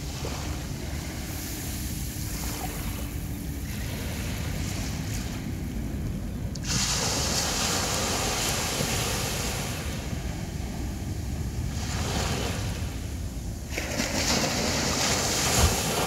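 Sea surf washing onto a beach. A wave breaks suddenly about seven seconds in, with a loud hiss of wash, and another surge builds near the end. There is a brief thump just before the end.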